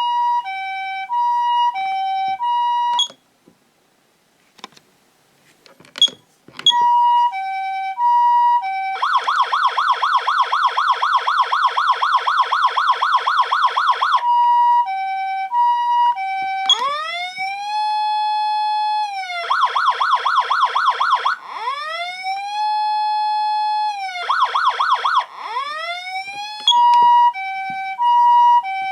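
Patlite SAP-500RBVK-N electronic siren amplifier sounding the Japanese ambulance two-tone "pee-poh" siren, alternating high and low notes about twice a second. About three seconds in it stops briefly with a couple of clicks. It then switches between the two-tone, a fast warbling tone and a rising, wailing "woo" motor-siren tone, ending on the two-tone.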